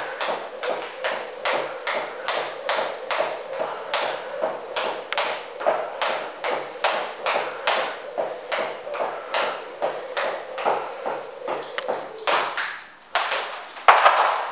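Skipping rope slapping a wooden floor with each jump, a steady rhythm of about two sharp slaps a second. Near the end the rhythm stops, an interval timer beeps twice, and a loud thump follows.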